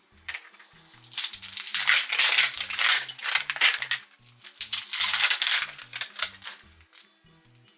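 Plastic packaging crinkling and rattling in two long spells as a Mini Brands mystery ball is unwrapped and opened, with small items clicking inside. Soft background music plays underneath.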